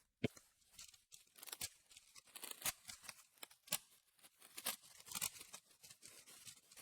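Faint crinkling and tearing of foil booster-pack wrappers being opened and handled, with scattered small clicks and crackles.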